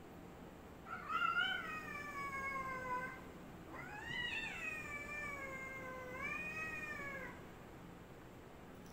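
Domestic cat yowling at another cat in a standoff before a fight: two long, drawn-out calls, the second longer, its pitch dipping and rising again near the end.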